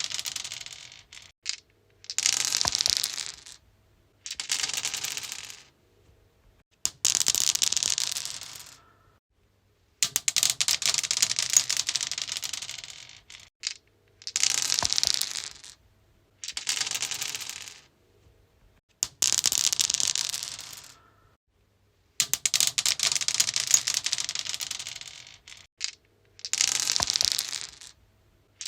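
Dice rolled again and again on a stone surface: each roll is a rattling clatter of quick clicks that dies away within a second or two, with short silences between, about ten rolls in all.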